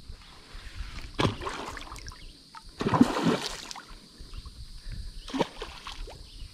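Hooked bowfin thrashing at the water's surface during the fight: splashing bursts about a second in, a bigger and longer splash around three seconds, and a short one past five seconds.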